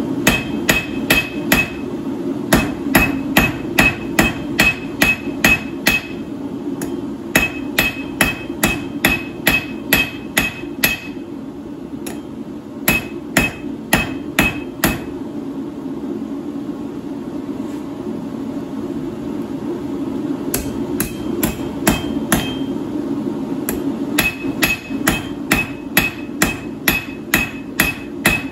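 Hand hammer striking a red-hot 3/8-inch round steel bar on an anvil to taper it. Runs of ringing blows come at about three a second, broken by several pauses, over a steady low hum.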